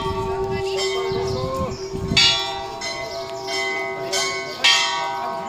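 Temple bell struck twice, about two and a half seconds apart, each stroke ringing on with a long fading hum, over the ringing of a stroke just before.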